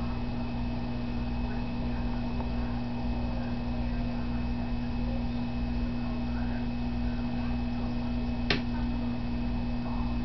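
Steady electrical hum of aquarium equipment, with a faint high whine above it and a single sharp click about eight and a half seconds in.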